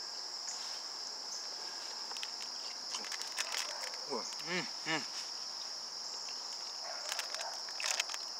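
Steady high-pitched drone of insects, with plastic snack wrapper crinkling about three seconds in and again near the end. Two short whines rising and falling in pitch about four and five seconds in.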